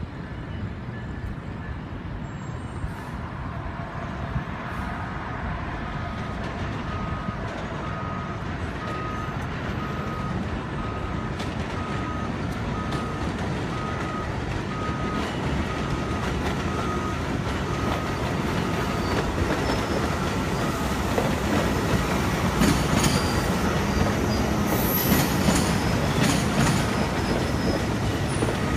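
Metra Highliner II electric multiple-unit train approaching and running past close by, its rumble growing steadily louder, with wheel squeal and clicks over rail joints and switches near the end. A faint beep repeats about once a second through the middle.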